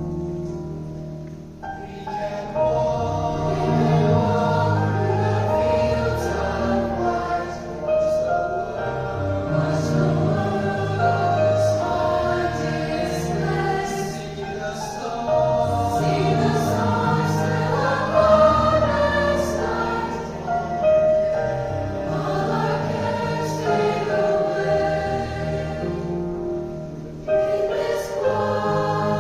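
A choir singing in several parts, the sound filling out about two seconds in.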